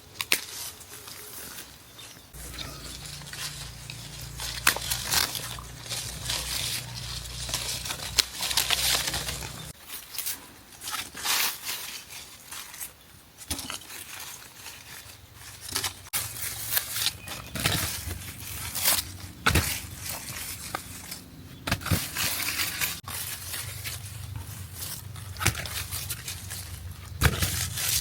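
Irregular rustling and crackling with frequent sharp clicks or snaps. A low steady rumble comes in about two seconds in, drops out around ten seconds, and returns later.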